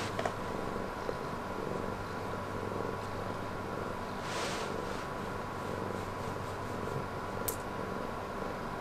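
Black house cat purring steadily while being petted, a sign it is relaxed and content.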